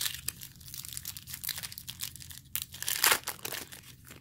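Foil wrapper of a Topps Chrome baseball card pack being torn open and crinkled: irregular crackling, loudest about three seconds in.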